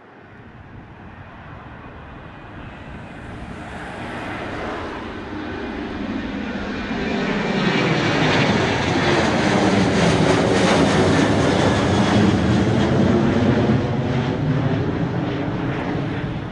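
Jet engines of a Boeing 737-800 (CFM56-7B turbofans) at takeoff power as it climbs out overhead: the noise builds steadily, is loudest for several seconds as the plane passes over, and starts to fade near the end as it climbs away.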